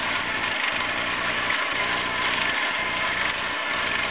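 Toy carousel running, driven by a small motor through its gear train: a steady whirring hum of motor and meshing gears, with a slight regular pulse about once a second.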